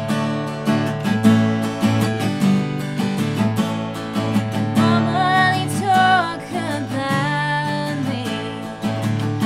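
Acoustic guitar strummed in a steady rhythm as a song begins, with a woman's voice starting to sing over it about halfway through.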